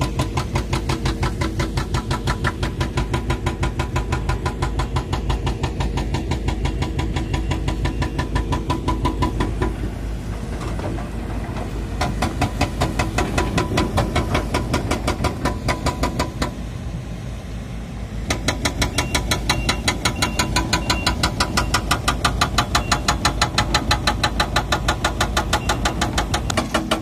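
Hydraulic breaker on a Hidromek 220 excavator hammering stone: a fast, steady pounding of several blows a second over the running diesel engine. The hammering eases briefly about ten seconds in and again a little past halfway.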